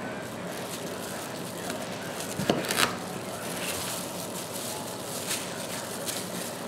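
A kitchen knife cutting butternut squash on a wooden chopping board, with two sharp knocks of the blade on the board close together a little under halfway through, over a steady hiss.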